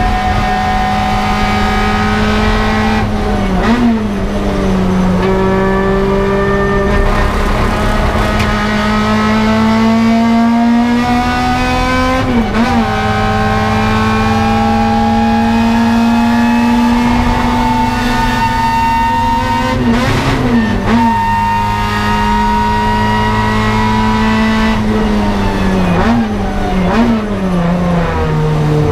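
Toyota 4A-GE twin-cam four-cylinder of a KE70 Corolla race car at full throttle, heard from inside the cockpit: the engine note climbs steadily through long pulls at high revs. About four times the revs dip and blip quickly at a gear change, including a pair of blips near the end.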